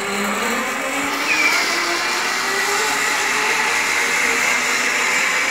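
Zipline trolley pulleys running along a steel cable as a rider slides down: a steady whirring hiss, with a faint tone rising in pitch over the first two seconds.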